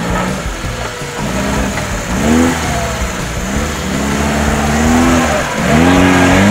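Lada Niva's engine revving up and down as the 4x4 crawls through soft sand, with a rise in pitch about two seconds in and another near the end.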